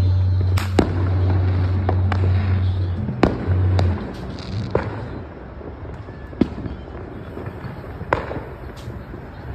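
Distant New Year fireworks going off: about nine scattered sharp bangs and pops, some with a brief echo, over a steady low hum that stops about four seconds in.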